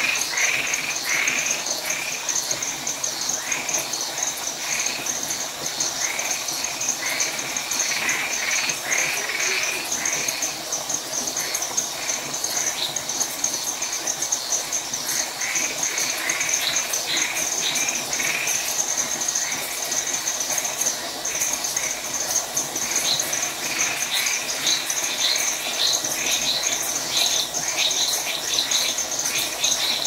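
Nighttime chorus of frogs and tree frogs calling in repeated short notes over a steady high trilling of crickets. After about twenty seconds the lower calls thin out and higher-pitched chirps take over.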